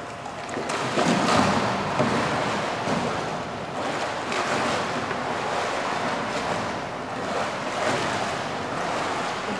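Pool water splashing and sloshing as a narrow racing kayak capsizes and its paddler hangs upside down beneath it during a rolling drill. The biggest splash comes about a second in as the boat goes over, with smaller splashes after.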